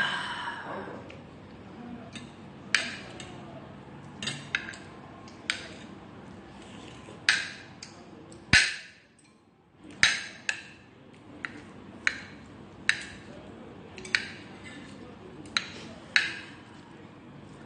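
Metal spoon clinking and scraping against a ceramic plate, about once a second, as it cuts up tteokbokki and boiled egg.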